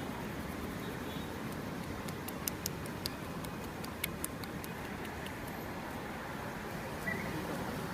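Steady street traffic noise, with a quick run of sharp clicks between about two and four and a half seconds in.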